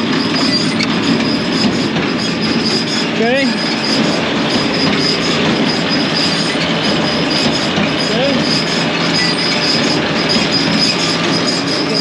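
John Deere L340 large square baler running off the tractor's PTO: a loud, steady clatter of its driven feeding and pre-chamber mechanism, with a thin high whine running through it.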